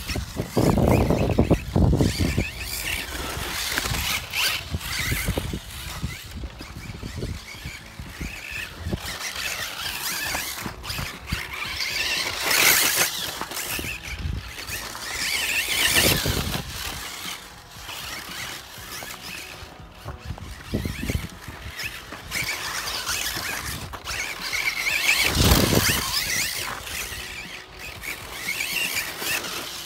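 Electric Kyosho Optima RC buggy running on a dirt track: a high-pitched motor and drivetrain whine with tyres scrabbling on loose dirt. It swells and fades several times as the throttle changes and the car passes nearer and farther.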